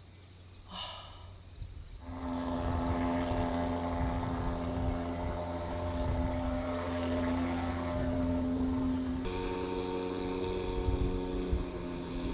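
A motor droning steadily, starting about two seconds in, with a low rumble under it; its pitch jumps to a new setting about nine seconds in.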